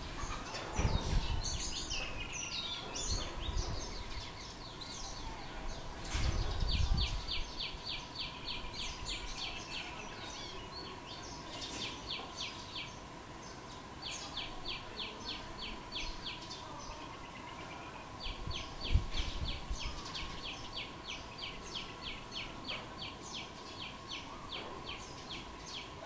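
A small bird chirping rapidly, about five short high notes a second, in several runs of a few seconds each. A faint steady hum and a few low rumbles lie underneath.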